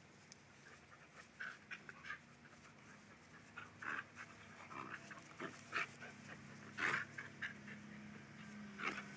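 A boxer and a husky panting and breathing hard in short, breathy bursts as they wrestle in play, the bursts louder in the second half.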